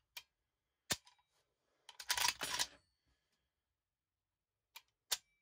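SKS-45 carbine's trigger and action worked by hand: sharp metallic clicks of the trigger breaking and resetting, a louder clattering of the action being cycled about two seconds in, then two quick clicks near the end.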